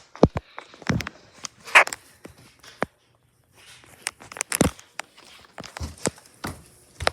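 Scattered knocks and clicks at an uneven pace, stopping briefly about three seconds in; no alarm tone is sounding.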